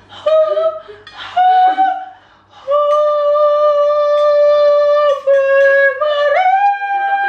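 A voice singing loud, high mock-operatic notes: a few short held notes, then one long steady note from about three to five seconds in, then a slide up to a higher note near the end.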